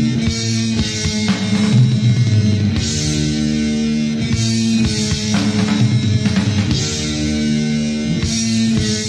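Metal band demo recording: distorted electric guitars and bass playing a riff over a drum kit, the chords shifting every second or so.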